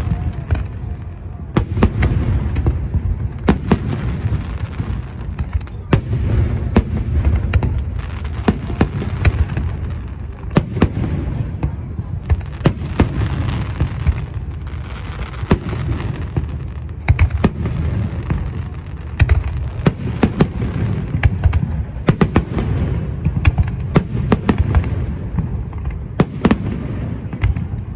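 Aerial fireworks display: a continuous barrage of booming shell bursts and sharp crackling reports, many per second at times, over a steady low rumble.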